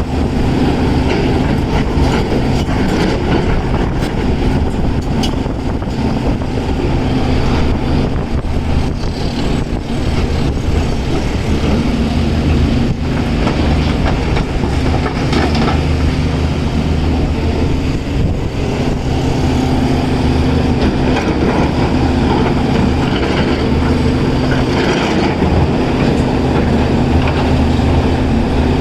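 Caterpillar 336 excavator's diesel engine running steadily under load, with scattered knocks and clatter over it.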